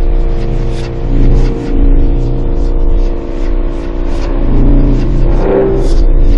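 Synthesized UFO sound effect: a loud, low hum with several steady tones that swells and fades every second or two, with hissy fluttering noise above it.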